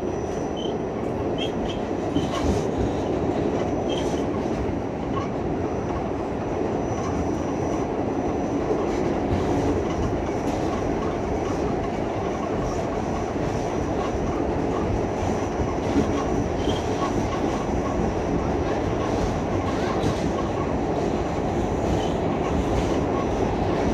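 R46 subway car running between stations, heard from inside the car: a steady rumble of steel wheels on the rails with scattered clicks from rail joints and a faint high steady whine.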